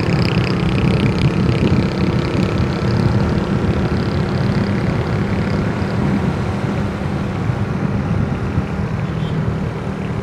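Honda Astrea Grand's small single-cylinder four-stroke engine running steadily at cruising speed, with road noise.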